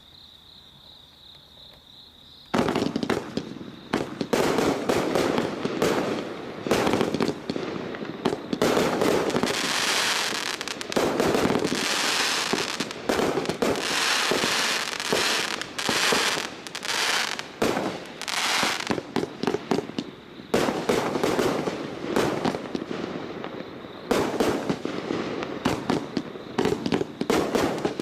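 Crickets trilling steadily, then about two and a half seconds in a Diamond Fireworks Mars Mission 49-shot fan cake starts firing: a fast, continuous run of launches and aerial bursts that goes on with only brief lulls.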